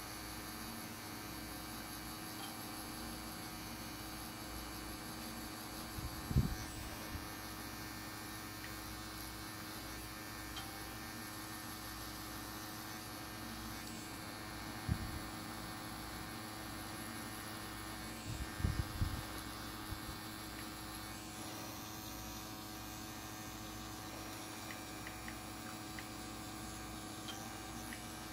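Pen-style rotary tattoo machine running with a steady hum while shading, with a few short low knocks of handling scattered through.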